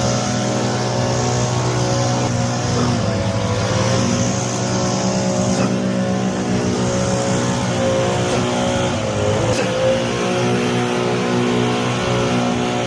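Grass cutter's engine running steadily at high speed, its pitch sagging briefly twice, around three seconds in and again near the end.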